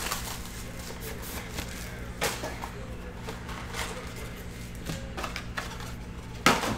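Handling of a trading-card hobby box: plastic wrap and cardboard rustling, with a few light taps, then a louder knock near the end as the foil packs are set down on the table. A low steady hum runs underneath.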